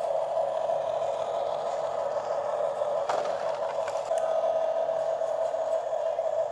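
Small electric motor of a toy RC construction model running with a steady whine, with a single click about three seconds in.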